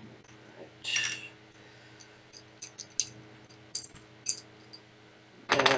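Small LEGO plastic pieces clicking and tapping against each other and the wooden table as they are picked up and handled: a few sharp separate clicks, with two short louder rustles, about a second in and near the end, over a faint steady hum.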